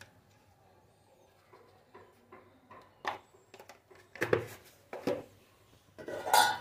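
A few soft knocks and clinks of a spoon and salt container as salt is sprinkled over flat beans in a wok, with short quiet gaps between them.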